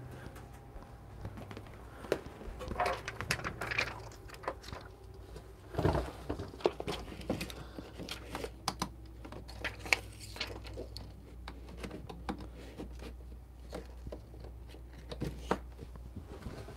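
Handling noise: scattered light clicks, knocks and rustles of a hand working at the back of a coffee grinder and fitting its power cable, with a few busier bunches of clicks a few seconds in and around six seconds. The grinder is not running.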